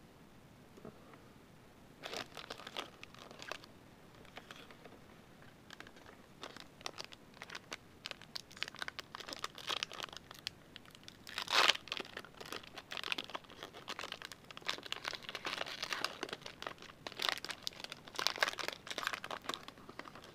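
Foil wrapper of a Panini Flux basketball card pack being torn open and crinkled by hand. It comes in irregular bursts of rustling from about two seconds in, with the loudest tear a little past the middle.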